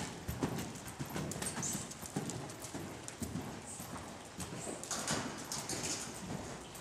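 Appendix Quarter Horse's hooves striking the soft dirt footing of an indoor arena as it moves under saddle: a steady rhythm of dull hoofbeats, roughly two a second.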